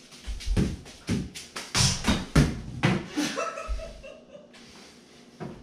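Juggling balls slapping into hands during a five-ball juggling run, a quick series of sharp catches. A brief voice sound follows about three and a half seconds in, as the run ends.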